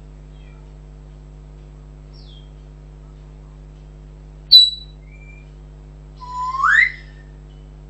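African grey parrot whistling. A few faint chirps come first, then a sharp, very loud high whistle about halfway through, and near the end a loud whistle that slides upward. A steady low hum runs underneath.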